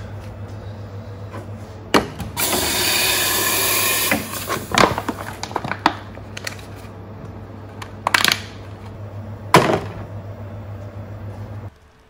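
Espresso machine steam wand hissing into an empty plastic milk bottle for nearly two seconds, about two seconds in. It is followed by several sharp crackles and knocks as the hot, softened bottle is twisted and crushed down. A steady low hum runs underneath.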